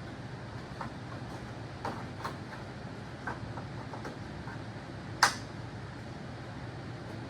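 Hand work on a tractor: a few light clicks and knocks of tools and parts being handled, with one sharp click about five seconds in, over a steady low hum.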